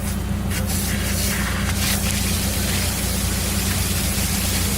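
Water jetting under high pressure, a dense hiss that starts about half a second in and keeps up, over a steady low engine drone.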